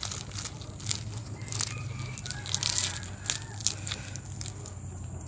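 Banana leaves crinkling and crunching in irregular crackles as a hand crams them into the open end of a green bamboo tube, plugging it shut as a stopper for bamboo-tube cooking.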